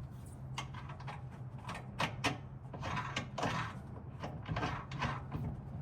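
A handful of short knocks and scrapes of parts and tools being handled during a suspension job, over a steady low hum.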